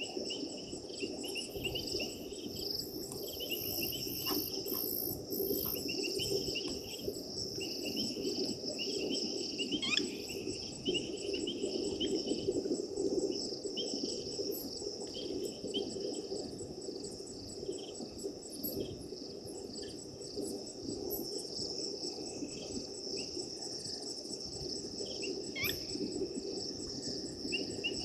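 Night chorus of crickets and other insects: a steady high trill over rapid, repeated short chirps.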